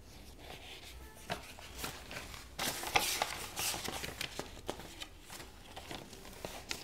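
Quiet rustling and scattered soft clicks of handling close to a clip-on microphone, louder for about a second midway through.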